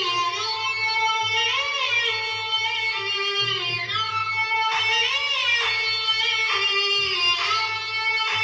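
Recorded music played through a large DJ sound system: a lead melody line that bends up and down in pitch over a steady, repeating bass beat.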